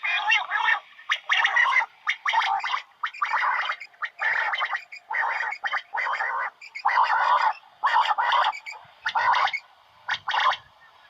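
Quail (batair) calling over and over: a long series of harsh, rasping notes, a little more than one a second.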